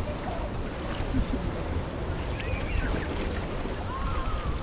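Wind buffeting the microphone over the steady wash of sea surf at the beach, a constant low rumble and hiss.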